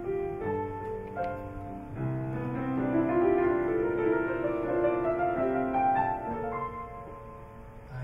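Piano playing the slow introduction to a jazz ballad, held chords changing about every second.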